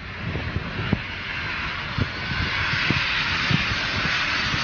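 Jet airliner in level flight, its engine noise a steady rushing roar that grows gradually louder.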